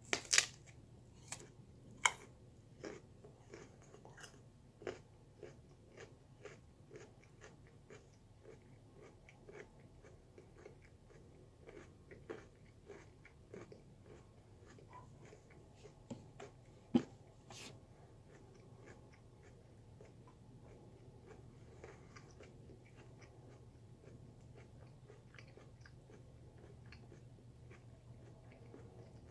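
A person biting and chewing raw sweet potato: irregular crisp crunches, a few louder ones near the start and about two thirds of the way in, thinning out near the end over a faint low hum.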